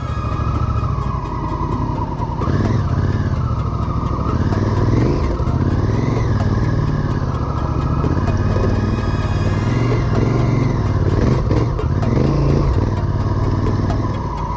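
Adventure motorcycle engine running under way, its pitch rising and falling a few times with the throttle, with music playing underneath.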